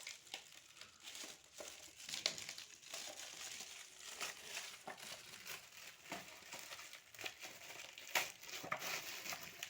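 Gift-wrapping paper crinkling and rustling as it is pulled and torn off a boxed present, an uneven run of crackles with a few sharper, louder ones.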